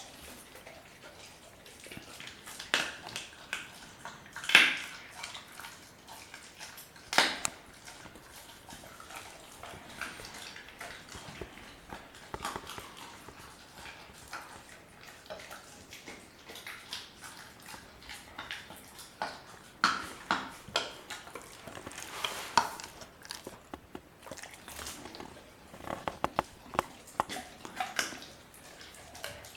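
German Shepherd puppy chewing a raw chicken quarter: irregular crunches of bone and wet chewing and smacking, with a few louder cracks.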